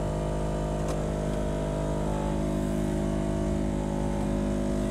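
Toyota Camry engine idling, heard from inside the cabin: a steady hum made of several even tones, with a faint click about a second in.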